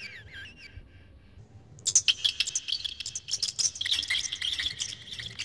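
A guinea pig eating chopped carrot and hay: quick crunching, clicking chews start about two seconds in and carry on densely. Before that, a run of high repeated chirps fades out within the first second.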